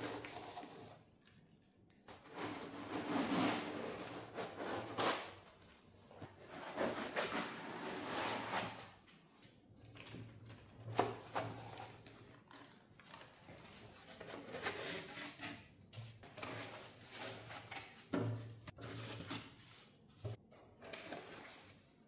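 Foam packing inserts being pulled out of a laser engraver's enclosure: irregular rubbing and scraping of foam against the machine, with a few sharp knocks.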